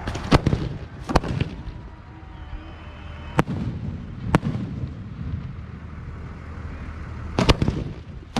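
Aerial fireworks bursting: sharp bangs at uneven gaps, two close together near the start, single ones around a third and halfway through, and a quick pair near the end, each followed by a rolling low rumble. A steady low hum runs underneath.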